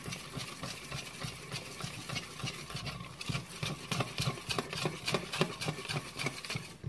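Wire whisk beating a thick honey and hot-sauce glaze in a stainless steel bowl: quick, even ticking of the wires against the metal, several strokes a second.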